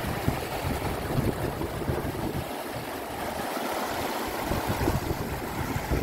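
Shallow, fast mountain river rushing steadily over a stony bed, with gusts of wind buffeting the microphone that ease off for a moment about halfway through.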